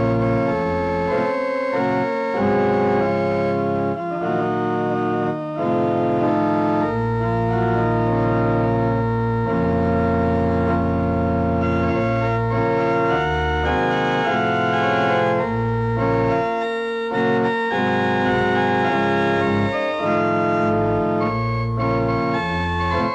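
Electronic organ sound playing a MIDI track: held chords over a bass line, with a melody moving above them, continuous throughout.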